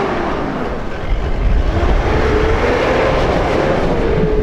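An SUV's engine running hard as it drives fast across loose sand, its pitch wavering and slowly rising.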